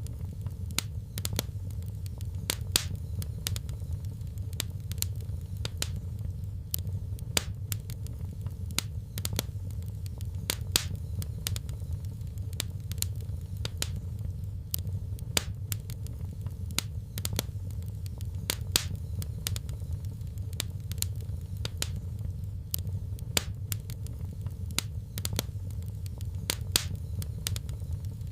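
Wood fire crackling in a fireplace: irregular sharp pops and snaps, sometimes several close together, over a steady low rumble of the flames.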